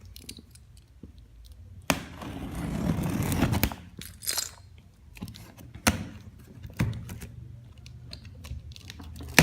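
A cardboard printer box and its packaging being handled and opened: scattered sharp knocks, and a louder stretch of tearing and rustling about two to four seconds in.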